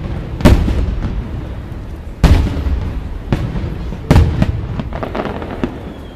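Fireworks display: aerial shells bursting in three heavy bangs about two seconds apart, with smaller sharp reports and a rolling rumble of echo between them.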